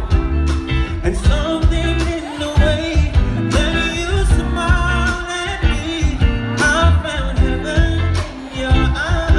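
Live band performance: a man singing gliding, held melodic lines over electric guitar, bass guitar and drums, amplified through a PA and heard from the audience.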